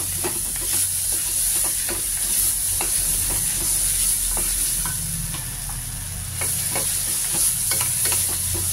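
Chopped onion, tomato and mint sizzling in oil in an aluminium pressure cooker while a wooden spatula stirs them, scraping and tapping irregularly against the pot over a steady hiss.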